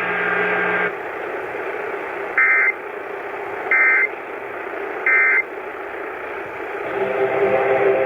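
Emergency Alert System end-of-message data tones: three short warbling digital bursts, each about a third of a second and spaced about a second and a third apart, signalling the end of the tornado warning. They sound over a steady hiss of the received broadcast.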